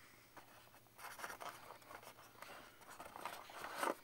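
Hands rustling and scraping against a plastic box insert tray while lifting the contents out, with the loudest scrape just before the end.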